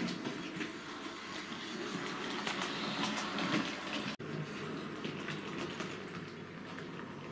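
Hornby model steam locomotive running on the layout's track: a steady running noise from the motor and wheels with a string of light clicks over the rail joints. The sound drops out for an instant about four seconds in.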